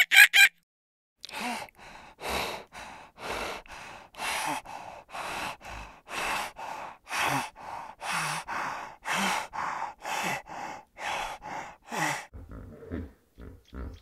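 Spotted hyena's rough, breathy huffing, in and out about twice a second for some ten seconds, the strokes alternating louder and softer. It opens with a brief loud shrill call and ends with a few short low grunts.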